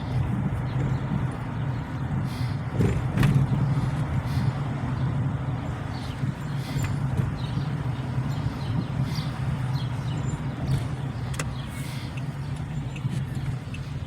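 Car engine and tyre noise heard from inside the cabin while driving at low speed: a steady low hum with a few light clicks and knocks.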